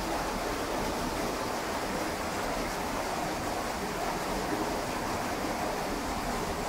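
Cave stream rushing and splashing over rock ledges, a steady even noise; the stream is muddy and running high after heavy rainfall.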